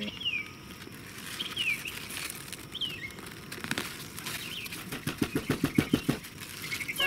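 Bird chirping in short, falling chirps, repeated every second or so. Past the middle comes a rapid fluttering run of about a dozen pulses in just over a second, the loudest part.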